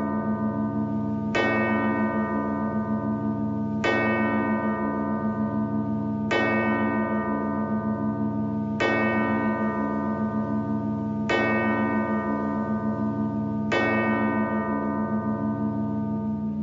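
The Ox Bell, a large hanging bell, struck six times at an even pace, about once every two and a half seconds. Each stroke rings on long over a low hum that carries on between the strokes.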